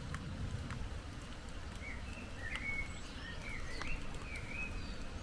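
Birds chirping, a string of short calls with quick rises and falls in pitch from about two seconds in, over a steady low outdoor rumble and scattered faint ticks.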